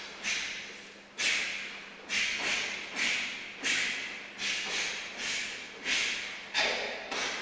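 Karate kata techniques: a quick series of about ten sharp hissing exhalations and gi snaps, roughly one every second or less, each fading briefly in the hall.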